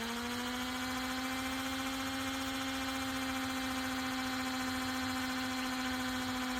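Electric drill motor running at a steady high speed while drilling a hole through the plastic rim of a stock pond, its whine settling into one even pitch just after the start.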